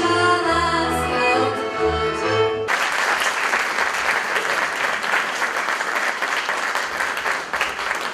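A folk band (fiddles, double bass, accordion) and a female singer end a folk song on a held final chord, cutting off about a third of the way in. Audience applause follows and carries on.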